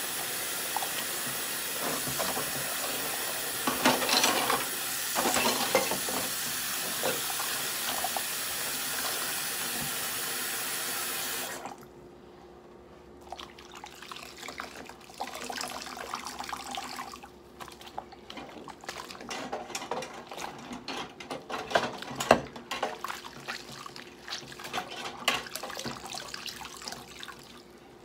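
Kitchen tap running steadily into a stainless-steel sink, shut off suddenly a little under halfway through. Then irregular splashing and rubbing as dishes are washed by hand with a dishcloth, with one sharp knock about two-thirds of the way through.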